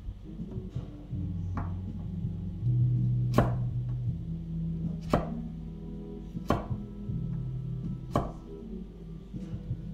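A 240mm Yoshiaki Fujiwara gyuto chef's knife cutting through carrot and striking a wooden cutting board, one sharp knock about every second and a half. Low background music plays underneath.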